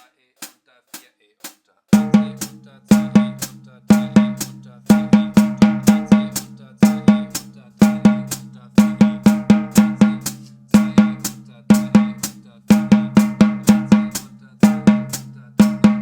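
Snare drum played with sticks in an exercise of double strokes. About two seconds in, after four light clicks half a second apart, it settles into about one group of quick strokes a second, each group of paired strikes ringing on under the next.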